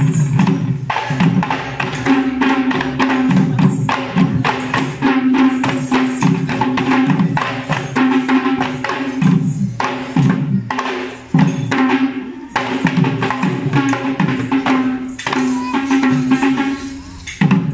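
Kandyan drums (geta bera) beaten in a steady dance rhythm with jingling hand percussion, over a sustained melodic line that drops out briefly every few seconds.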